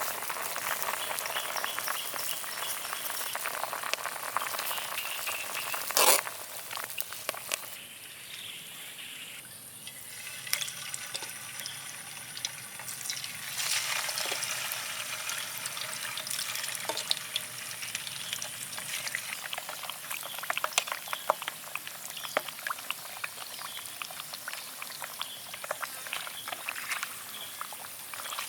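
Pork belly cooking in a pot: a steady crackling and bubbling of many small pops, with one sharp knock about six seconds in.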